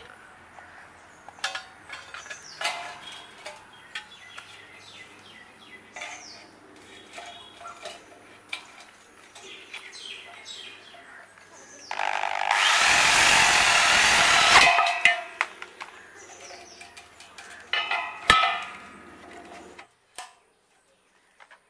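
A handheld power tool runs for about three seconds, starting with a rising whine, amid scattered clicks and knocks of hand work; a shorter noisy burst follows near the end.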